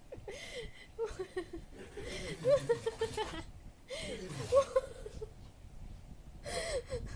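A person laughing in several short bouts, high-pitched and breathy.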